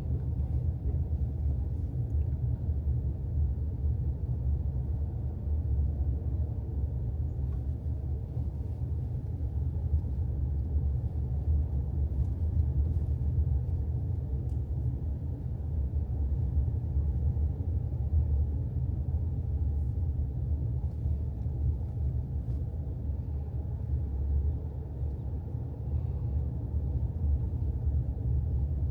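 Steady low rumble of a moving car's road noise, fluttering slightly in level.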